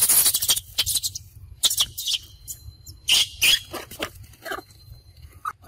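Young macaques squealing in a string of short, high-pitched bursts, loudest about three seconds in. A loud scraping rustle comes right at the start.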